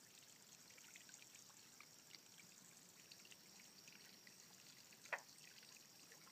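Near silence: a faint trickle and drip of water left over from the rain, with scattered tiny ticks and one sharper click about five seconds in.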